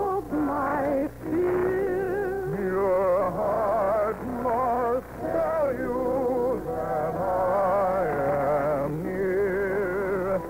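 Orchestral music with a singer holding long, wavering vibrato notes, in the style of operetta, with brief breaks about a second in and about five seconds in. The sound is thin and muffled, topping out low as on an old radio broadcast recording.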